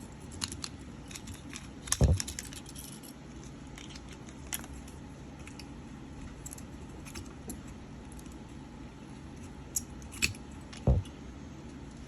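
Small clicks and taps of tools and parts being handled on a workbench, with two louder dull knocks, one about two seconds in and one near the end.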